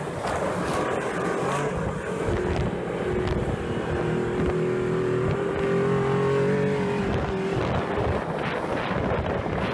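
Snowmobile engine running, its note rising slightly and holding for several seconds in the middle, with wind buffeting the microphone throughout.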